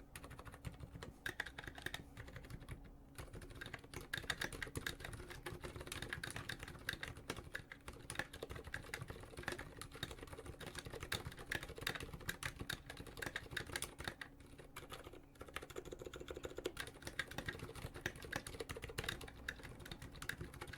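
Fast, continuous typing on a Duck Blackbird custom mechanical keyboard with Aliaz Silent 65 g switches and PBT keycaps: a quiet, dense stream of key presses, with short pauses about three seconds in and again around fifteen seconds.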